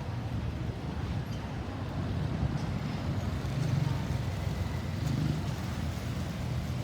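Road traffic noise: a steady low rumble of vehicle engines and tyres, with no siren sounding.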